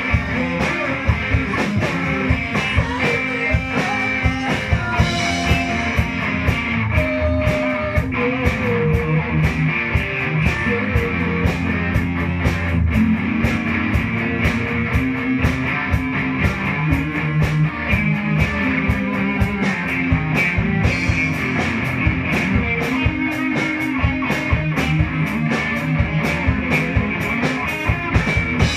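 A rock band playing live: guitars over a drum kit with a steady beat.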